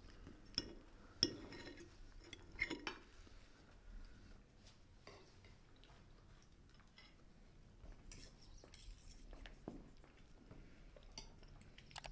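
Cutlery clinking against a plate, with a few sharper clinks in the first three seconds and fainter light taps after.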